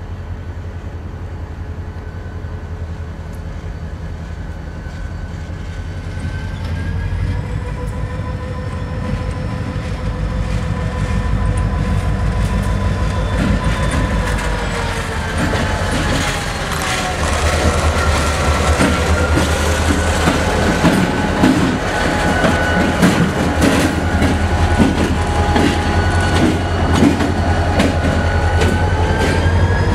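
EMD diesel road-switcher locomotive approaching and passing close by, its engine growing louder as it nears. A high steady whine drops in pitch about halfway through. In the second half the wheels click over the rail joints.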